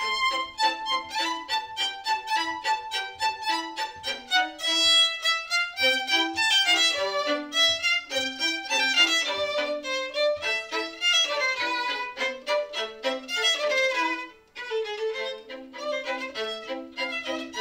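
Two violins playing a duet, in quick runs of notes. The playing breaks off briefly about fourteen seconds in, then carries on.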